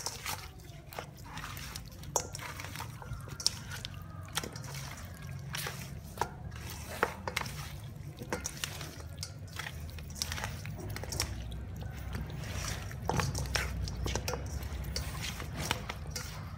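Raw chicken pieces mixed by hand in a stainless steel bowl: wet squelching of the meat with irregular clicks and knocks as pieces hit the metal.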